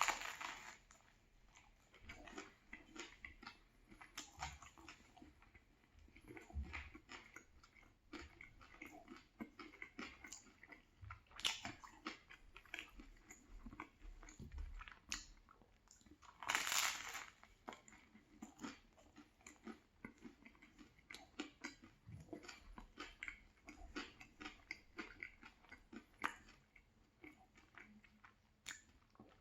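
Close-miked chewing and crunching of a crusty banh mi baguette sandwich: many small crackling crunches with soft chewing between, and a louder bite-crunch about 17 seconds in.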